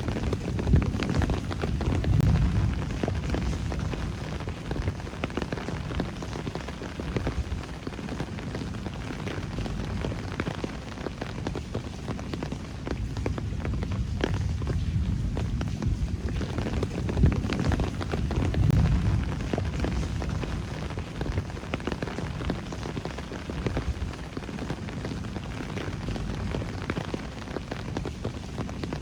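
City rain recorded on a phone: a steady hiss of rainfall dotted with many close drops and drips ticking. A low rumble swells up twice, near the start and a little past the middle.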